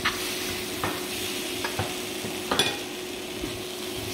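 Onion, spice and tomato masala sizzling in a hot pan while a spoon stirs it, knocking against the pan a few times, loudest about two and a half seconds in.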